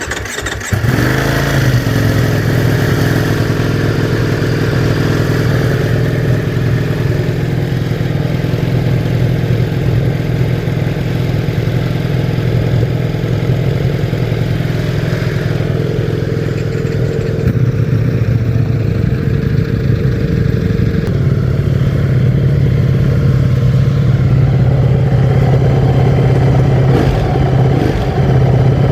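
Ducati Streetfighter V4 S's 1103 cc V4 engine starting about a second in, then idling steadily.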